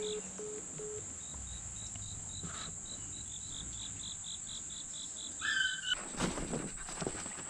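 Insects chirping in the woods: a steady high drone under a pulsed chirp that repeats about four times a second. Near the end comes a short call, then a few sharp knocks.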